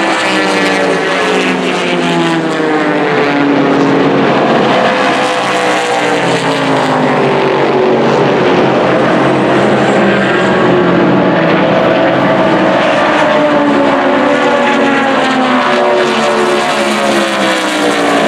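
Several race car engines running hard at once, their overlapping notes rising and falling in pitch as the cars pass by and shift gears.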